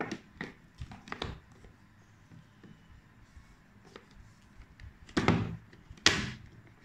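Cardboard product box being opened by hand: a few light taps and clicks of fingers on the box at first, then two louder short scrapes near the end as the lid is worked loose and slid off.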